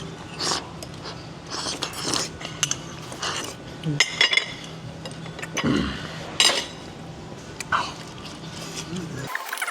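Metal cutlery clinking and scraping on plates in quick, irregular knocks and clicks as a plate of breakfast is eaten fast, over a steady low room hum that cuts off near the end.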